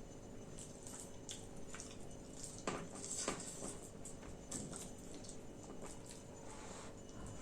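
Wet, sticky eating sounds of soft dal-rice khichdi: irregular soft smacks and squelches, with a few sharper clicks about three seconds in.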